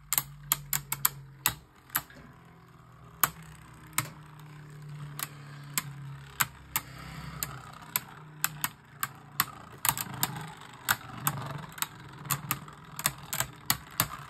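Two Beyblade Burst tops spinning in a stadium and striking each other, making irregular sharp clacks, at times several a second and at times about a second apart.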